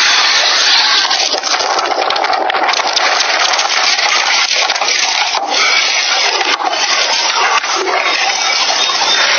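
Loud, dense crackling and rushing noise full of sharp cracks and snaps: fire burning in the wreckage of the crashed ATR 72, picked up by a passenger's phone microphone.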